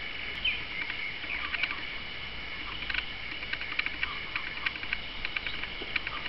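Small birds chirping: quick runs of short, high chirps, busiest about three seconds in and again near the end, over a steady high-pitched ringing in the background.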